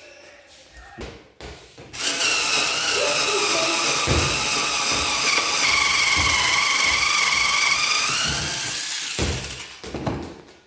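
Small electric drill running into the wooden board for about seven seconds, starting about two seconds in. Its motor whine holds steady under load, sags a little, then rises just before it stops.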